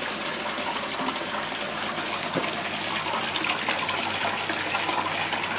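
Water running and gushing steadily into koi holding tanks, an even rushing hiss.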